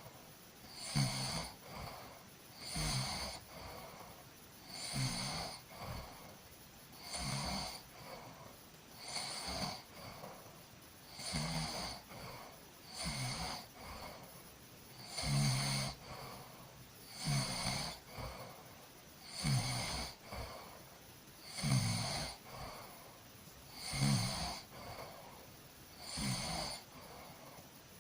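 A person snoring steadily, one snore about every two seconds, each a low rasp with a breathy hiss.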